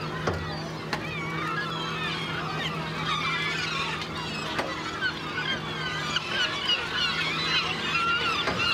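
A dense flock of gulls, herring gulls and great black-backed gulls, calling over one another as they squabble for herring at the surface. A steady low hum from the fishing boat's engine runs underneath.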